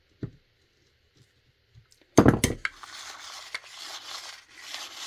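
Small metal tools and parts clattering on a workbench: one loud clatter about two seconds in, then steady rattling and scraping as they are rummaged through.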